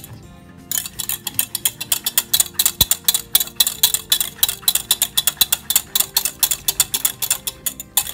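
Wire whisk beating an egg-and-sugar mixture in a stainless steel pot, the wires clicking rapidly and evenly against the metal sides. The clicking starts about three-quarters of a second in, after a short pause.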